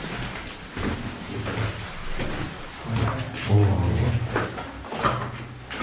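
Footsteps on a stairwell with scattered knocks and scuffs, and low thuds near the middle.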